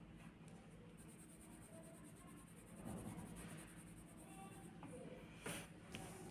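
Faint scratching of a pencil shading on paper, over a steady low hum, with a brief louder scrape about five and a half seconds in.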